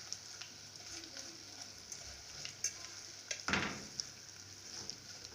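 Small omena fish sizzling in hot cooking oil in a pot while being stirred, with small clicks of the stirring spoon and one louder stroke about three and a half seconds in.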